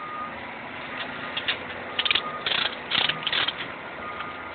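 Steel transport chain and a ratchet chain binder clinking and rattling as they are handled, in four short clusters of metallic clicks in the second half.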